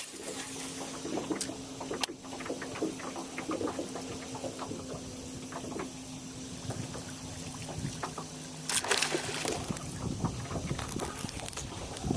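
Sounds on a fishing boat on the water: a steady low hum with trickling water and scattered small knocks and clicks, and a brief louder rush about nine seconds in.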